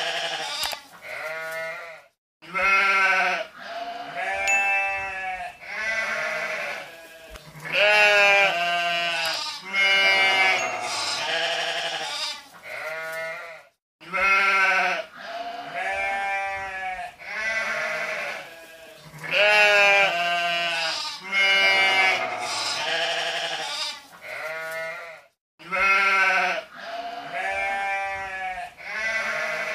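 Goats bleating over and over, wavering calls of different pitches one after another, in a sequence that repeats about every eleven and a half seconds with a brief silent break between repeats.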